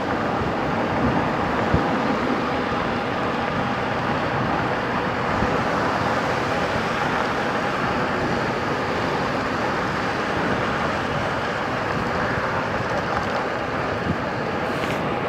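Steady rush of wind and road noise while riding a RadRover electric fat-tire bike along a road.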